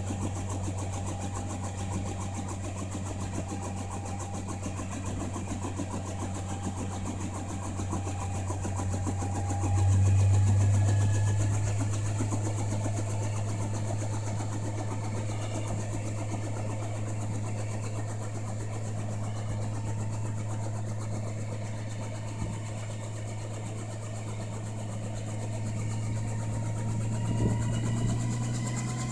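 Small crop-spraying helicopter's engine idling on the ground, a steady low hum that swells briefly about ten seconds in.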